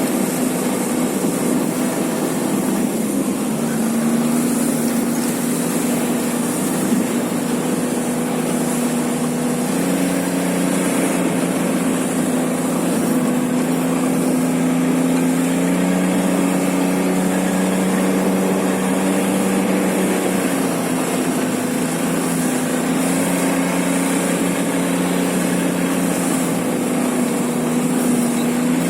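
An engine running steadily under way, its note drifting slightly up and down, with a constant hiss over it.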